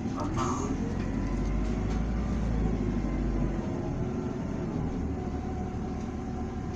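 Isuzu Erga city bus's diesel engine pulling under way, heard from on board, with a whine rising as it gathers speed and a deep rumble that eases about three and a half seconds in.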